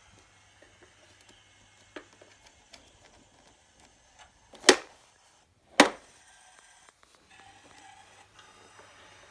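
Two sharp knocks about a second apart near the middle, among faint light taps and ticks.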